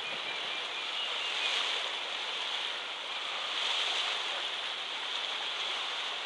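Steady rush of water and wind as a boat moves over open water.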